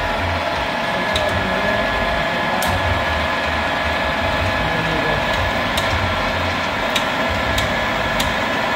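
Warner & Swasey turret lathe running steadily, with a faint whine and a handful of sharp metallic clicks as its turret and slide levers are worked.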